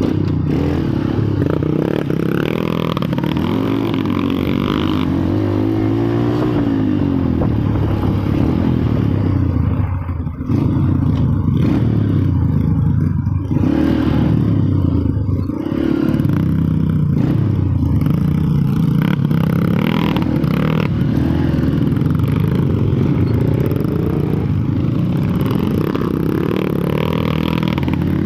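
A motor vehicle's engine running, its pitch rising and falling repeatedly as it is revved up and eased off.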